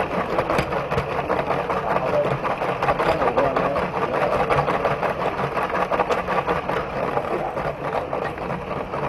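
LEGO train's small electric motor whirring steadily while its wheels click and rattle along plastic track, heard from inside the moving carriage.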